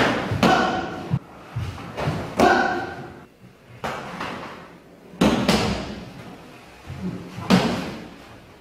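Taekwondo strikes and blocks landing on a padded chest protector and on arms, with feet stamping on a wooden floor: a series of sharp thuds and slaps every second or so, echoing in the hall. Two short shouts come with the strikes about half a second and two and a half seconds in.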